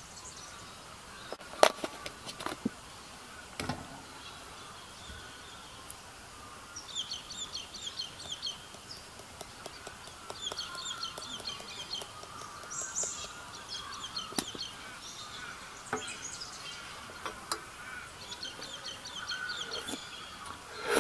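A metal spoon clinking a few times against an enamel mug while stirring, the loudest clink about a second and a half in. Between the clinks a bird gives several bursts of rapid high chirping.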